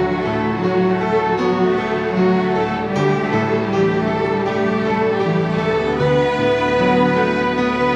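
Student string orchestra of violins, cellos and double basses playing a flowing passage of held, changing chords.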